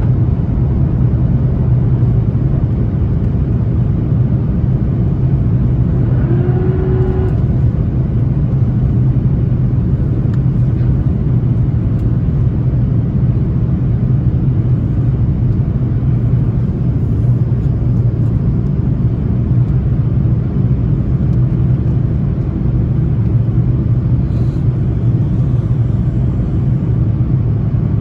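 Airbus A330-300 cabin noise heard from a seat over the wing in flight: the steady low drone of its Rolls-Royce Trent 700 engines mixed with airflow noise. About seven seconds in, a brief pitched sound rises above the drone for under a second.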